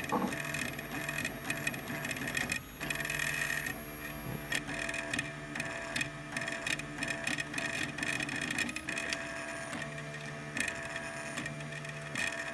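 Stepper motors of a homemade 3D printer built from CD-ROM drive mechanisms, whining and buzzing as the print head moves. The whine switches on and off every second or two and changes pitch between runs, with many small clicks.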